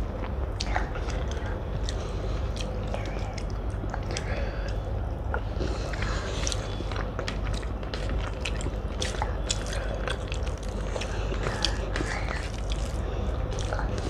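Close-up eating sounds: chewing with wet mouth clicks, and fingers mixing rice and omelette curry on a plate. Many small sharp clicks run throughout over a steady low hum.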